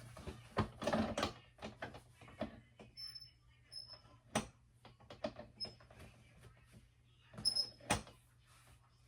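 Irregular clicks, knocks and rattles of gaming-chair parts being handled and fitted together during assembly, with a few brief high squeaks. The busiest patch is about a second in, with another cluster near the end.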